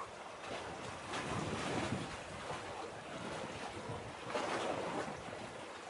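Small waves washing against concrete breakwater blocks, in gentle surges with two stronger washes, about a second in and again past the middle, along with wind on the microphone.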